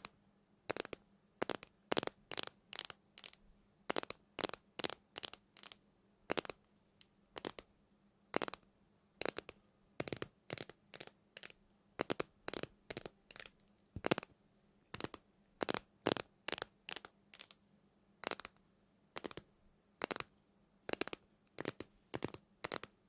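Short, crisp crackles or crunches at an uneven pace, roughly one or two a second, over a faint steady low hum.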